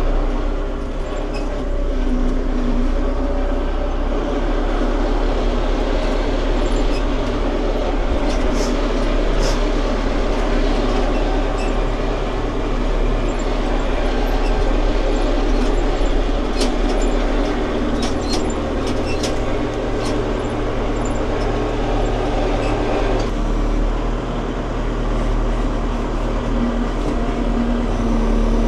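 An engine running steadily, with scattered sharp knocks and cracks over it; its note changes slightly about 23 seconds in.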